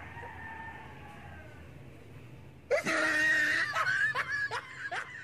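A person lets out a sudden loud shriek a little over halfway in, then breaks into quick bursts of laughter, about three a second.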